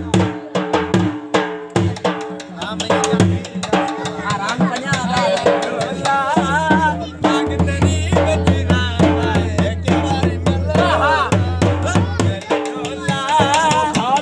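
Dhol drum playing a driving dance rhythm over music with a steady bass and a wavering melody line that comes in partway through.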